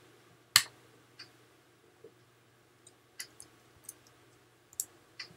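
Computer mouse button clicking: about eight short separate clicks, the loudest about half a second in, over a faint steady hum.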